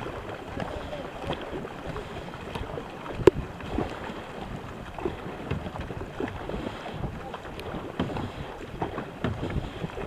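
Kayak paddles splashing in hard, quick strokes as a K2 racing kayak is driven through the water, with water rushing and wind noise on the microphone. A single sharp knock about three seconds in.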